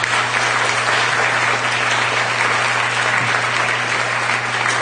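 Audience applauding with dense, steady clapping at the end of a lecture.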